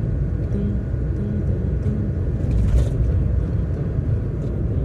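Steady low rumble of a car on the road, heard from inside the cabin, with a brief hiss about two and a half seconds in.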